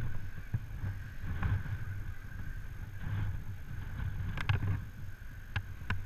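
Wind buffeting the microphone in a low, uneven rumble, with a few sharp knocks about four and a half seconds in and again near the end.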